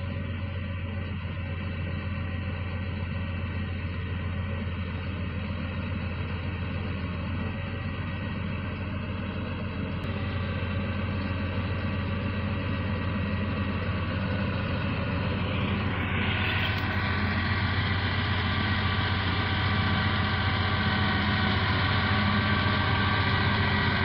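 Diesel engine of a Komatsu crawler bulldozer running steadily under load while it pushes soil. The sound slowly grows louder as the machine comes closer.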